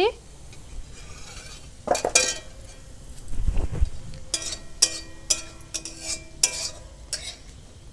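A steel kadai (wok) of fried onion and capsicum is set down with a dull thump, then a metal spatula knocks and scrapes against it about six times, the pan ringing after each knock.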